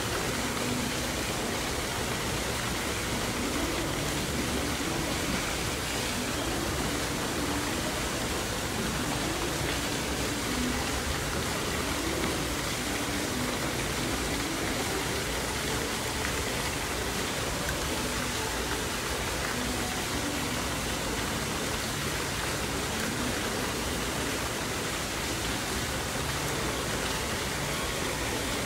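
Steady rushing background noise, even and unbroken, with no distinct clicks or knocks.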